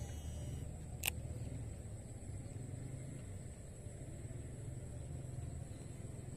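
Steady low rumble with one short, sharp sound about a second in as a baitcasting rod is cast.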